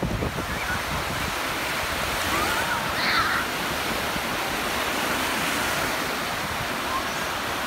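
Small waves breaking and washing on a Lake Michigan beach, with gulls calling a few times about two to three seconds in and again near the end.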